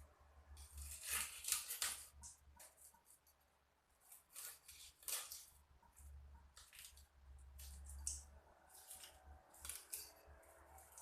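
Faint, irregular crisp snipping and scraping as fresh biawan fish are cleaned by hand, in short strokes with a brief pause about three seconds in.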